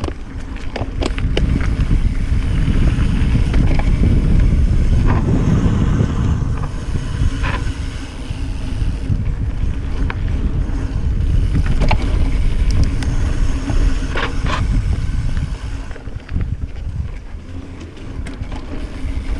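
Wind buffeting the action camera's microphone as a Cannondale F-Si hardtail mountain bike rides fast down a dirt singletrack, with scattered clicks and knocks from the bike over bumps. The wind noise eases near the end as the bike slows.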